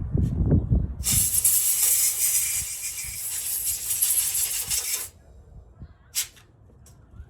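Aerosol cleaner sprayed onto a mass airflow sensor's element in one steady hiss lasting about four seconds that stops abruptly, then a short second spritz, as the sensor is cleaned. Low handling bumps come before the spray.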